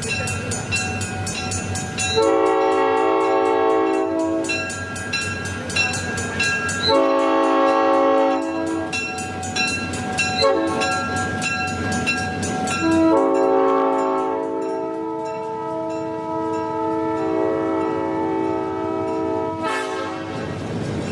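Southern Pacific E9 diesel locomotive's multi-note air horn sounding two long blasts, short toots, then a final long blast of about seven seconds. Beneath the horn, a faint ringing tick repeats steadily about every two-thirds of a second.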